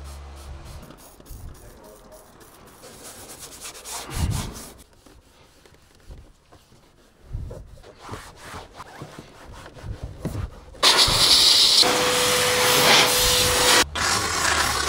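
Soft cloth rubbing and handling noises on car upholstery and trim, then about eleven seconds in a loud, steady hiss starts suddenly: a steam cleaner jetting steam through its nozzle onto cloth seat fabric.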